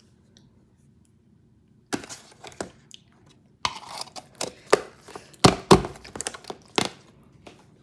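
Close handling noises: a run of sharp clicks, knocks and crinkles as hands fumble with objects right by the microphone. They start about two seconds in and are loudest near the end.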